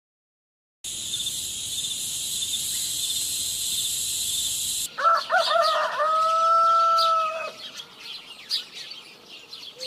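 A rooster crowing about five seconds in: a few short rising notes, then one long held note, followed by faint bird chirps. Before it, a steady high hiss with a fast pulsing starts about a second in and cuts off just before the crow.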